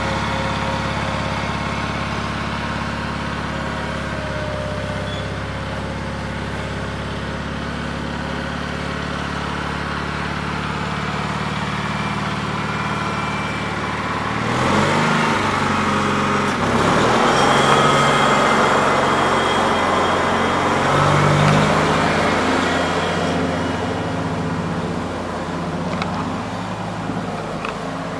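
Cub Cadet 2082 garden tractor running while mowing, a steady engine note. About halfway through it grows louder and rougher, with more hiss and an uneven engine note.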